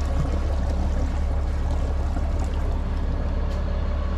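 Fire rescue boat's engines idling at the dock with a steady low rumble, and water splashing alongside.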